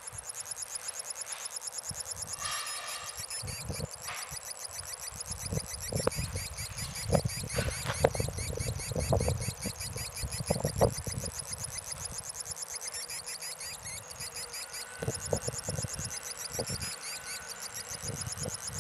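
Solar-powered oscillator 'bird synth' circuit chirping: a rapid, high-pitched twittering pattern repeating several times a second. Its pitch and pattern shift as a hand shades the solar cells, starving the chip of voltage. Louder low thumps come in the middle and again near the end.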